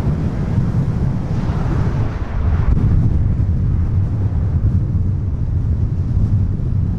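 Dassault Falcon 7X's three rear-mounted Pratt & Whitney PW307 turbofans at high thrust for the takeoff roll, heard as a steady low rumble from behind the jet.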